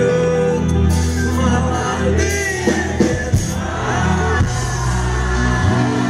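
Live rock band playing loud: a male singer holding sung notes over drums, bass and guitar.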